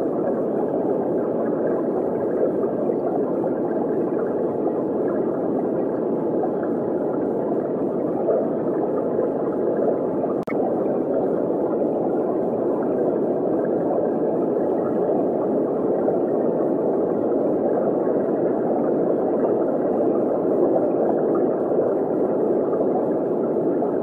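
Steady underwater water noise of an aquarium tank, with a brief click about ten seconds in.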